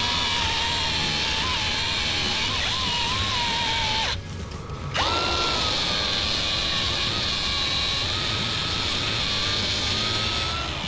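Handheld electric grinder working steel bracket stock: a steady motor whine that sags and wavers as it bites. About four seconds in it stops briefly, then spins back up with a rising whine.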